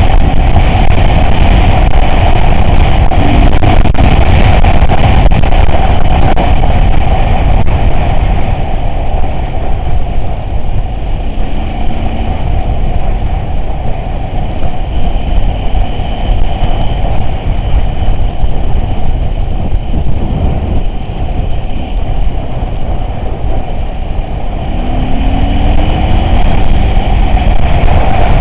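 Off-road vehicle's engine running under way, loud and steady. It eases off for a stretch in the middle, then builds again near the end.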